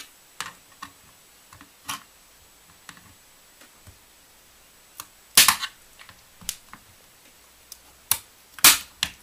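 Plastic casing of an old Acer laptop battery pack snapping and cracking as it is cut and pried apart with side cutters: a series of sharp clicks and snaps, the loudest about five and a half seconds in and near the end.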